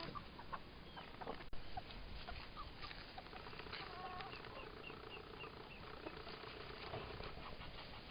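Faint poultry-yard sounds: hens clucking, with a run of short high peeps from young birds near the middle and scattered small clicks.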